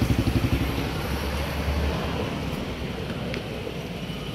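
A motor vehicle engine running with a fast low pulsing beat that fades out after about two seconds, leaving steady background noise.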